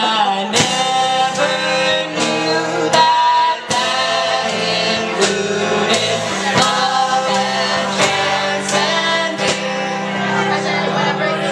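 Folk band playing a song, with male and female voices singing together over instruments and a steady, regular beat.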